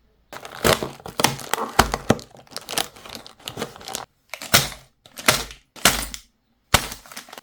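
A small Lego set's packaging being opened by hand: cardboard and plastic parts bags crinkling and tearing, with small thunks, for about four seconds, then a run of about five short crinkling rustles.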